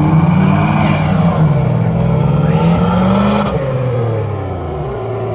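A 4x4's engine revving hard under load, its pitch rising and falling as the driver works the throttle, then easing off about three and a half seconds in.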